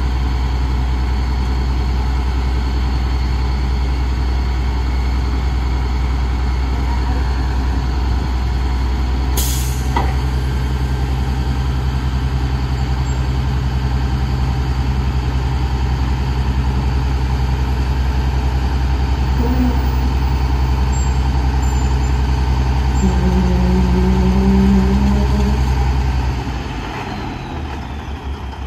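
Roll-off garbage truck's diesel engine running steadily, with one short hiss of air from the air brakes about a third of the way in. Near the end a higher tone joins the engine, then the engine drops to a lower, quieter idle.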